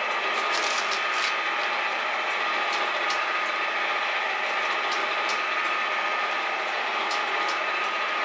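Metal shaper running and cutting into a conveyor drive roller: a steady mechanical clatter with a thin high whine, broken by scattered sharp clicks.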